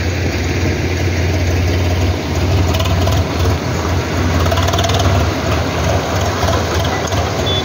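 A motor vehicle's engine running with a steady low hum over a constant noisy wash.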